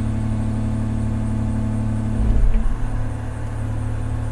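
Large excavator's diesel engine running steadily, with a heavy low thump a little over two seconds in as the machine works its bucket.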